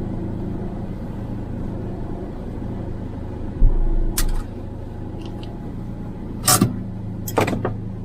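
RV engine running with a steady low hum, with a low thump about three and a half seconds in and a few sharp knocks near the end.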